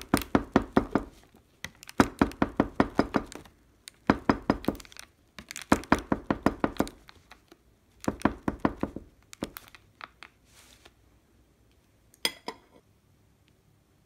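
A long knife sawing through a loaf of bread in a plastic tray: quick rasping strokes in runs of about a second, one run per slice, five of them, then fainter strokes and a single sharp knock near the end.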